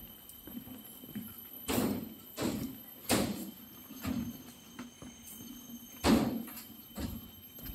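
A hiker's footsteps along the trail: irregular footfalls, roughly one a second, each a short thud.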